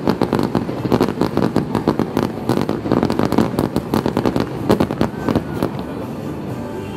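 Fireworks display: a dense, rapid crackling and popping of many bursting shells, thinning out near the end.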